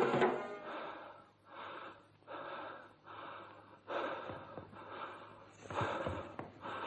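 Drum and accordion folk music cuts off just at the start, then loud breathy gasps follow one after another, a little more than one a second, like a person panting hard.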